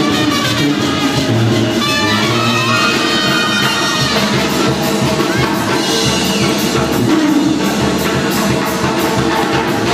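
Loud dance music with brass and drums, played over a party DJ sound system.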